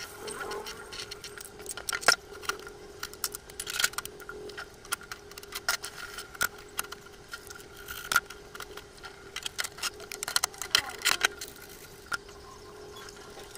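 Kitchen cleanup clatter: scattered light clicks, knocks and clinks of cookware, a metal tong and a plastic spray bottle being handled and set down on a counter, busiest near the end, over a faint steady hum.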